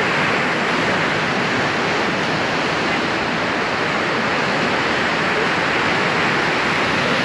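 Sea surf along the shore: a steady rushing noise with no breaks.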